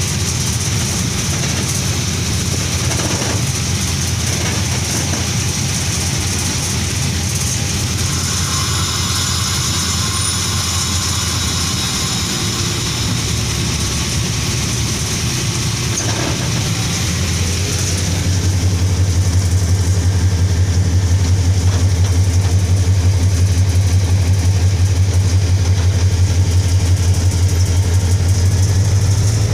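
Diesel locomotive engine running with a steady low drone, under wheel-on-rail rumble and rushing air at the cab front. About two-thirds through, the rushing noise fades and the engine drone grows louder and steadier.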